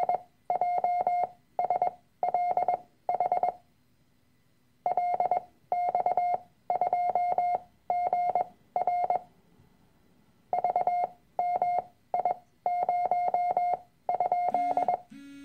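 Morse code practice tone keying groups of random letters and numbers, with shortened gaps between characters and a pause of about a second between groups. Near the end come two short, lower-pitched beeps.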